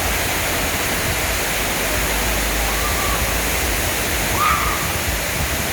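Steady rush of falling, running water from a water slide. Faint distant voices call out briefly about three and four and a half seconds in.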